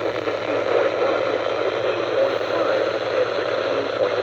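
NOAA Weather Radio broadcast heard through heavy static: a steady hiss with muffled, hard-to-make-out speech underneath.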